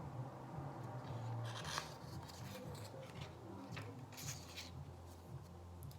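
Quiet room tone: a low steady hum with a few faint, soft ticks and rustles.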